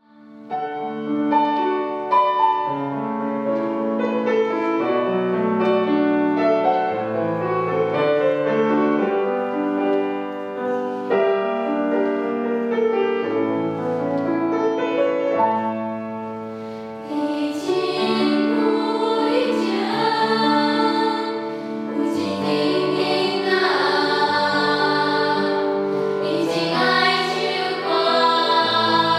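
Children's choir with piano: the piano plays an introduction of steady, separate notes, and the choir comes in singing about seventeen seconds in.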